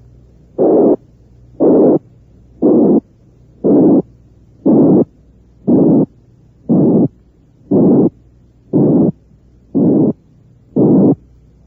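Simulated heart murmur made of short bursts of filtered noise, about one a second. Each starts as a narrow band around 460 cycles and gradually takes in lower frequencies down to 180, so the murmur grows harsher, the harsh murmur associated with aortic and pulmonary stenosis.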